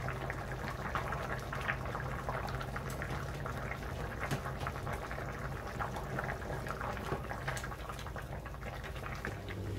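Soup at a rolling boil in a red enamelled cast-iron pot, bubbling and popping steadily, over a low, steady hum.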